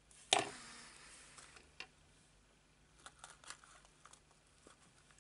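Small crafting handling noises: one sharp click with a short rustling tail a moment in, then faint paper rustles and light taps as hands handle a liquid glue bottle and a small cardstock box while gluing a paper butterfly onto it.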